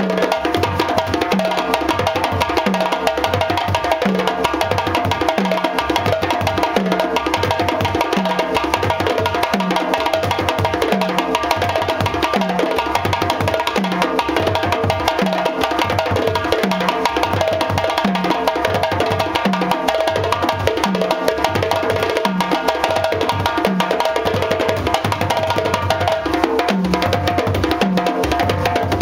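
Djembé ensemble playing: a djembé solo over djembé accompaniment and stick-struck dunun bass drums. A steady, evenly repeating low beat runs under dense, fast hand strokes.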